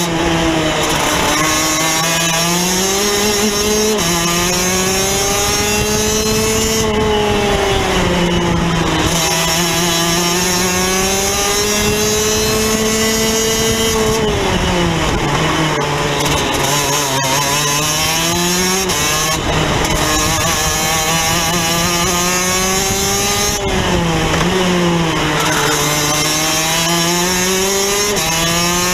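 Rotax DD2 kart's 125cc two-stroke single-cylinder engine heard onboard at racing speed, revs climbing over several seconds and then falling off, again and again, about four times.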